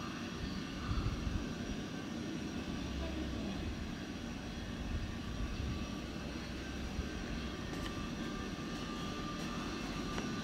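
Steady distant engine drone over outdoor ambience, with a low rumble and a faint steady whine.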